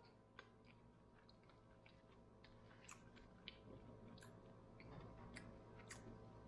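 Faint, scattered clicks and crackles of cooked shell-on shrimp being peeled by hand.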